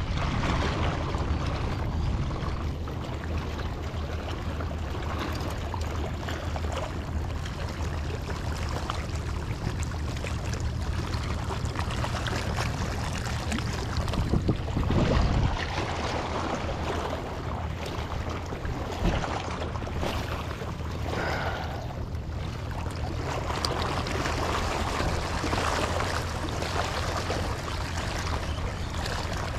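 Small sea waves washing and lapping against shoreline rocks, with wind on the microphone, gusting louder about halfway through, over a steady low hum.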